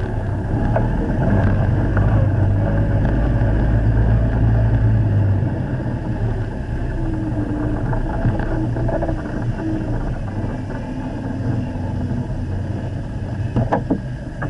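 Steyr-Puch Haflinger's air-cooled flat-twin engine running as the vehicle drives over dirt tracks. It is loudest for the first five seconds, then eases off to a lower, steady run. A couple of short knocks come near the end.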